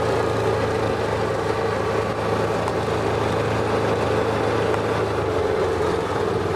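Steady drone of a moving vehicle's engine, a constant hum with no change throughout.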